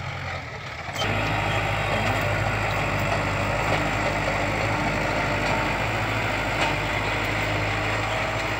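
Kubota tractor's diesel engine running steadily under load while it pulls a disc plough through the soil. It gets suddenly louder and closer about a second in.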